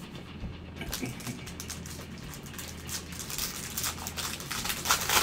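Gloved hands flipping through a stack of baseball cards: rapid clicks and rustling of card edges, busiest and loudest near the end, over a steady low hum.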